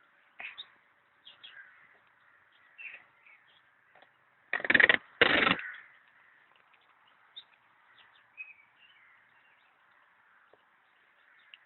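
Faint bird chirps and small scattered ticks in a forest, broken about halfway by two loud harsh sounds of about half a second each, one right after the other.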